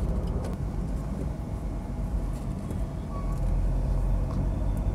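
Maruti Suzuki Baleno hatchback with its 1.2-litre petrol engine driving along at road speed, heard from inside the cabin as a steady low rumble of engine and tyre noise.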